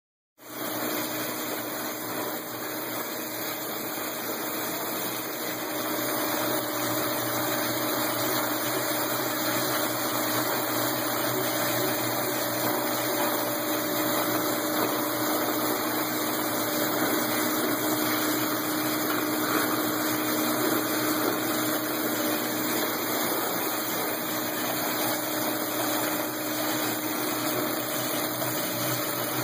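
Label printing press running steadily: a continuous machine noise with an even low hum as the printed label web feeds over its rollers.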